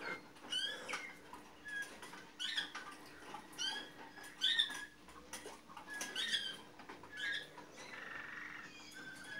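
Malinois (Waterslager) song canary singing: short, curved chirping notes a second or less apart, with sharp clicks between them, and a fast rolling passage near the end.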